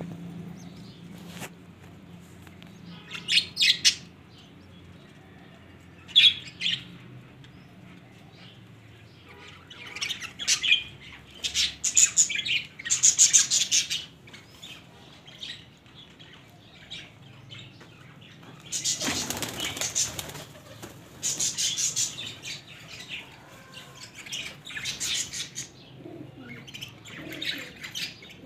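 Domestic pigeons flapping their wings in short flurries, several times over, with quieter gaps between.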